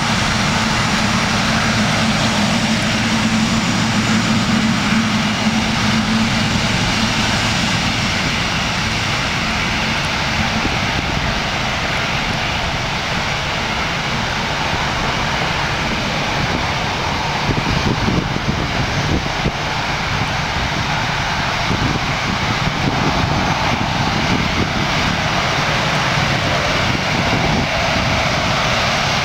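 The General Electric GE90 turbofan engines of a Boeing 777-200 running steadily: a dense, even rushing noise with a low hum that fades after about seven seconds.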